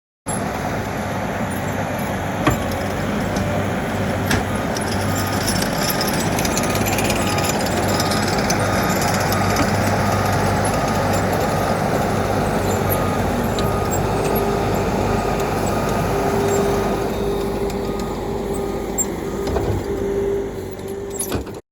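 Diesel engine of a tracked earthmoving machine running steadily under load, moving road base, with a couple of sharp knocks of metal and rock early on and a steady hydraulic-like tone joining in the last third.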